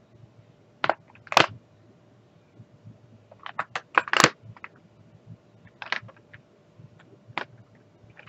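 Small plastic bottles of diamond-painting drills clicking and clacking as they are handled and set into a plastic storage case's compartments. A handful of sharp knocks comes at irregular intervals, the loudest about a second and a half in and again about four seconds in.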